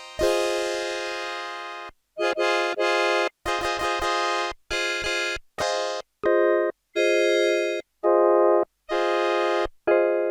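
Yamaha PSS-570 portable keyboard playing chords: one fades out over the first two seconds, then a string of about eight short chords follows, each cut off sharply with a brief silence between.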